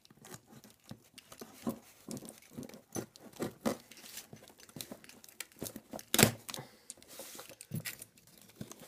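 Swiss Army knife blade cutting and scraping through packing tape on a cardboard box: irregular scratches, taps and tape tearing, the loudest a sharp knock about six seconds in.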